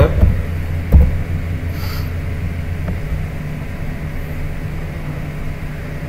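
Steady low hum over a faint hiss of background noise, with a single sharp thump about a second in.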